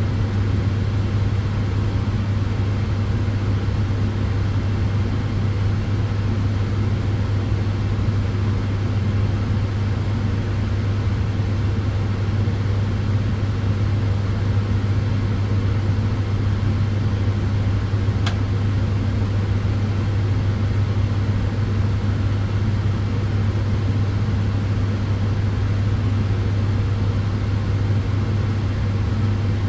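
Solarium tanning bed running: steady fan rush over a strong, even deep hum, with one faint tick about 18 seconds in.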